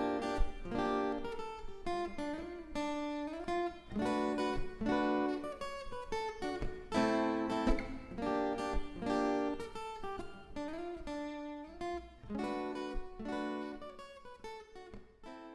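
Background music: acoustic guitar picked and strummed, with note bends.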